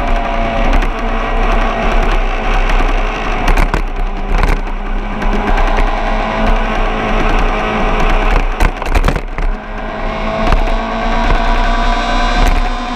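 A racing engine running hard at high revs. Its pitch dips a little before ten seconds in and climbs again.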